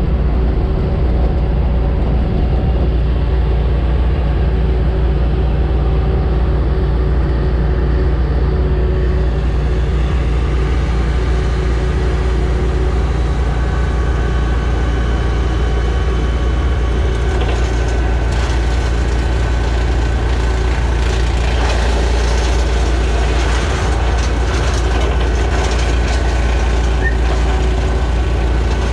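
Brush Bandit 280XP woodchipper running steadily at speed, with rougher, noisy stretches coming and going in the second half as material goes through it.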